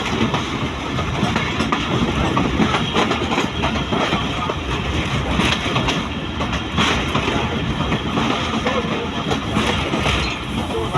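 A moving train running along the track: a steady rumble with the clatter of its wheels over the rails.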